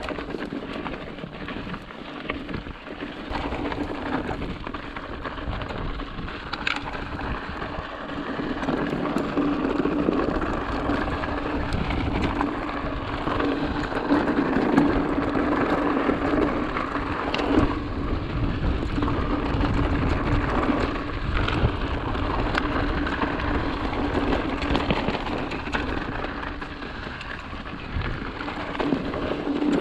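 Ari Bikes Signal Peak mountain bike rolling along a dirt singletrack: steady tyre noise on loose dirt with a constant low hum and scattered small rattles and clicks from the bike, swelling and easing with speed.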